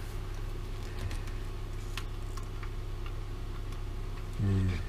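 A few faint, sharp clicks and light rustling as hands work the wiring loom and spade connectors on a motorcycle dashboard panel, over a steady low hum.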